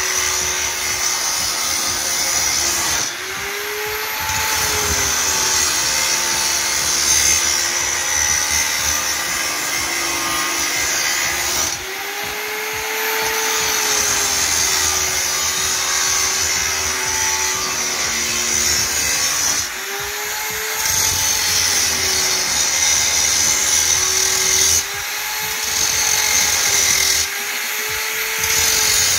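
Electric angle grinder mounted in a cut-off stand, its abrasive disc cutting through metal: a steady motor whine with a hissing grind. About five times the cutting noise drops and the motor's pitch briefly rises as the disc comes off the load, then it bites again.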